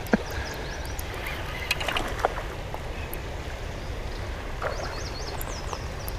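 Shallow stream running over a riffle, a steady rushing. Short high bird chirps come in about half a second in and again in a quick series around five seconds, with a few faint clicks around two seconds.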